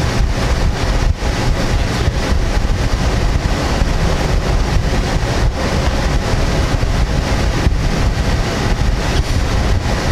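Steady, loud rushing of wind buffeting the microphone at an open car window, over the low rumble of the Chevrolet car's engine idling.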